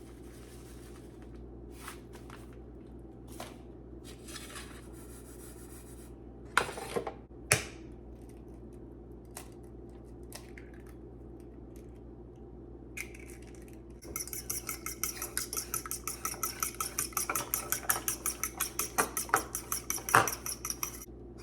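Kitchenware clattering with a few light clicks and two sharp knocks, then about halfway through a fork beating an egg in a bowl: rapid, even clinking, about four or five strokes a second, for the last seven seconds.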